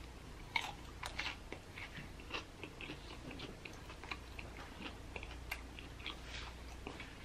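A person chewing a mouthful of breaded fried chicken sandwich: faint, irregular crunches and wet mouth clicks.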